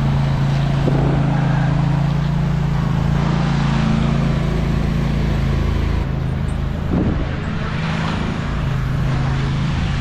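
An engine running at a steady speed. Its deep rumble drops away about six seconds in, and a single knock comes about a second later.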